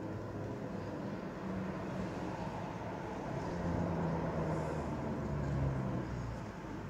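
Historic Hamburg tramcar approaching along the track: a low running rumble with a steady motor hum that grows a little louder midway.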